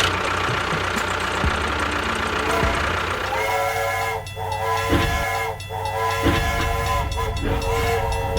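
A loud hiss, then from about three seconds in, a train-style horn or whistle sounding on one steady chord in several blasts with short breaks.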